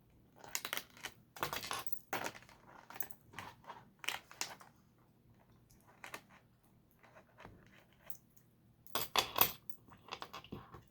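Plastic LEGO pieces clicking and rattling as they are handled and pressed together, in short scattered bursts with quiet gaps between.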